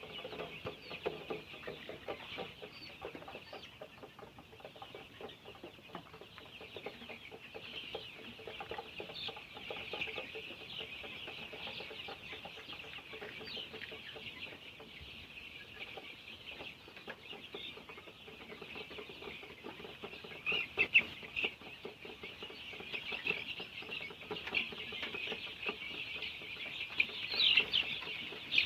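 A flock of 26-day-old Golden Misri chicks cheeping continuously in a dense chorus, with a few louder calls standing out about two-thirds through and again near the end.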